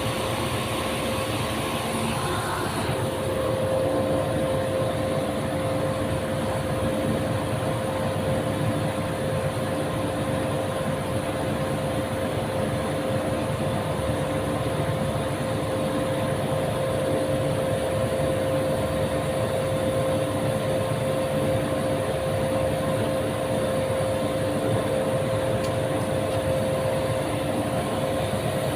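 A motor-driven machine running with a steady hum and a constant tone; the hum grows a little stronger about three seconds in and then holds steady.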